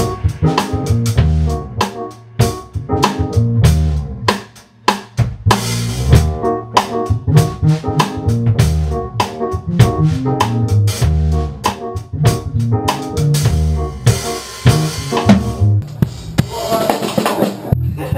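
Drum kit, electric bass guitar and electric keyboard playing a funky groove together, with regular snare and kick strokes under the bass line. Cymbals wash out about a third of the way in and again near the end.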